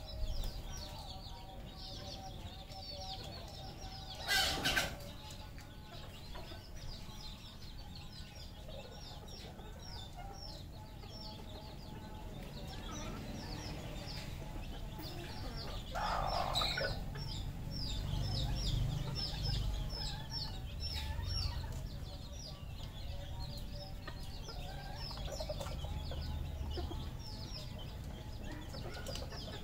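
Red junglefowl clucking and calling, with many quick high chirps all through and two louder bursts, about four seconds in and about sixteen seconds in.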